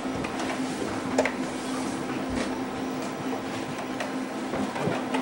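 Commodore VIC-20 keys clicking at an irregular pace as a username and password are typed in, over a steady hum.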